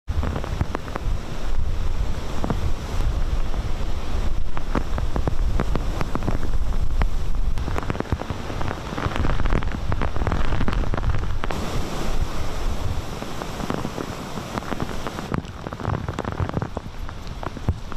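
Typhoon wind buffeting the microphone in heavy gusts, with breaking surf and driving rain beneath it. The mix shifts suddenly a few times as the footage cuts between shots.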